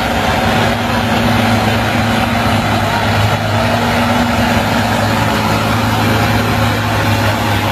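Articulated log skidder's diesel engine running steadily as the machine crawls through a mud pit.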